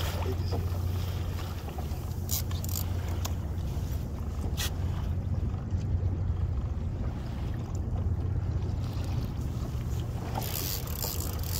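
Small boat's motor idling with a steady low hum, and a few sharp clicks in the middle.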